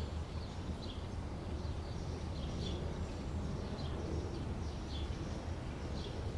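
Outdoor summer daytime ambience: a steady low background rumble with small birds chirping in short calls, about one or two a second.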